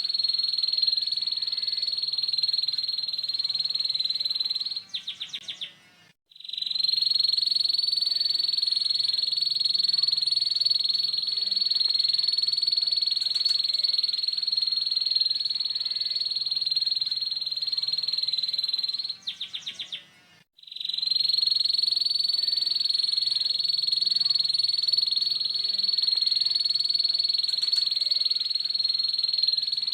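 Canary singing a rough ngeriwik trill: one very fast, continuous trill held at a single high pitch. Twice it breaks into a short run of separate notes and a brief gap before the trill starts again. This is a lure song for teaching young canaries the ngeriwik.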